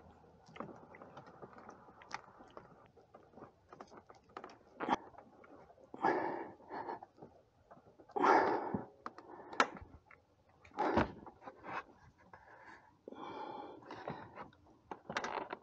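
Hands and a wrench working a new AC compressor belt onto its pulley: scattered clicks and scrapes of metal tools and rubber belt on the pulleys. Several loud breathy bursts stand out above them, likely strained breaths and grunts from the effort.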